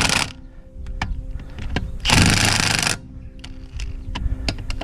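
Cordless high-torque impact wrench hammering wheel bolts tight on its slower number-2 setting, in bursts of about a second each with a pause between. There are light clicks in the gaps as the socket goes onto the next bolt.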